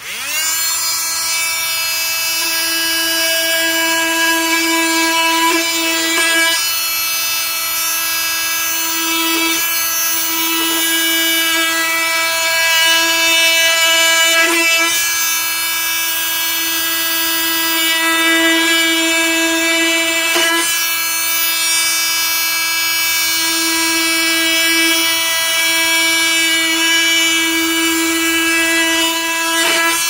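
Cordless FLEX FX4111 oscillating multi-tool switched on, spinning up quickly and then running with a steady high-pitched buzzing whine as its blade cuts through raw meat. The note wavers briefly a few times as the blade works in.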